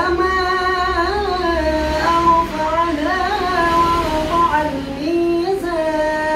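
A male qari reciting the Quran in the melodic tilawah style: one high voice holding long notes, with ornamented turns between them.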